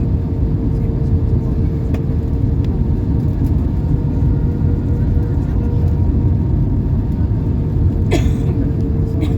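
Steady low rumble of an airliner cabin, with a constant hum running through it and a sharp click about eight seconds in.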